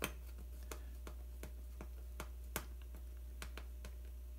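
Faint, irregular small clicks of hands handling a wireless thermometer's plastic case and circuit board, over a steady low hum.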